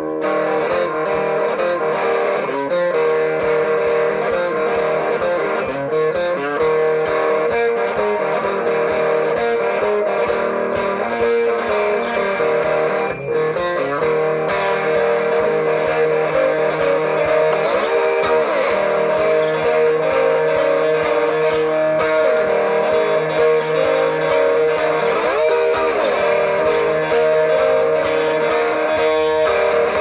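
Electric guitar played solo through an amplifier: sustained notes and chords ringing, with several bent notes sliding up and down.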